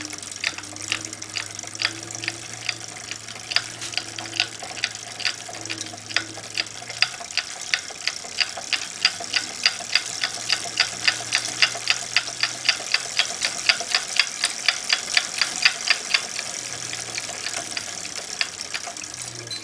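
Regular sharp ticking from the A2B Metro G2 e-bike's rear drivetrain, about two ticks a second at first, quickening to about four a second midway, then stopping a few seconds before the end.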